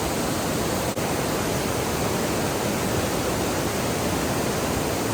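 Steady rush of water from a waterfall and creek, an even, unbroken hiss, with a brief dip about a second in.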